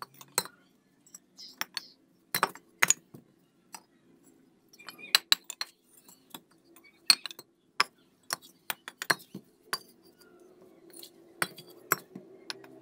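Sharp, irregular clinks and knocks of fired clay bricks being set down against each other and tapped into place with a hammer while a brick course is laid. A faint steady hum runs underneath, rising a little near the end.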